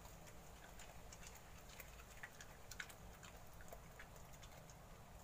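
Faint, irregular crisp clicks and crunches of a small dog chewing raw kale leaves.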